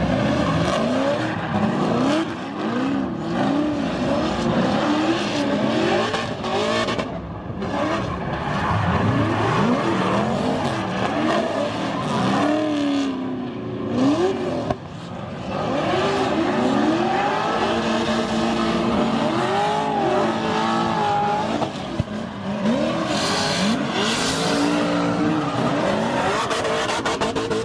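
Drift cars' engines revving hard, the pitch climbing and falling again and again as the drivers work the throttle, over the screech of tyres sliding sideways.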